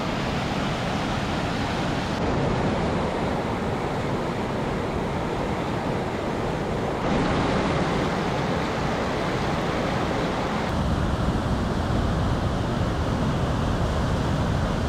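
Wind buffeting the microphone: a steady rushing noise with a flickering low rumble, which changes abruptly about 2, 7 and 11 seconds in.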